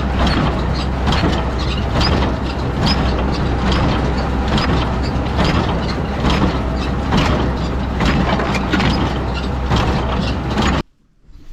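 Massey Ferguson 12 square baler working behind an International 585 tractor: a steady engine drone with the baler's regular mechanical knocks about twice a second. It cuts off suddenly near the end.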